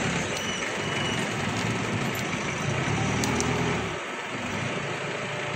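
Engine lathe running with a hydraulic screw shaft turning in its four-jaw chuck while the tool undercuts it before spray welding: a steady mechanical running noise with a low hum that drops away about four seconds in.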